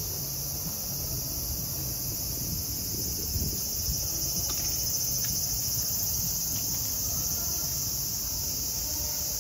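A chorus of cicadas buzzing in a steady, unbroken high-pitched drone, over a low background rumble.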